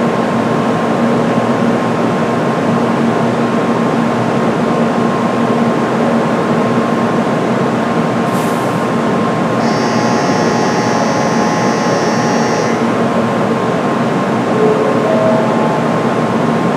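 N700A Shinkansen trainset standing at the platform, its on-board equipment running with a steady hum and a faint whine. Partway through, a high electronic tone sounds for about three seconds.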